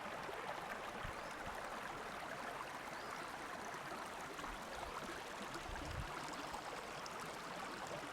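Spring water running steadily in a small stream, an even rushing wash, with a couple of soft low bumps about a second in and near six seconds.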